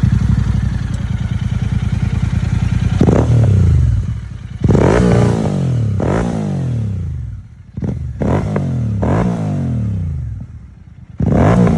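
Royal Enfield Continental GT650's 650 cc parallel-twin engine through Gursewak Big Shot aftermarket exhaust cans, idling steadily, then revved in a series of quick throttle blips from about three seconds in, each rev falling back toward idle.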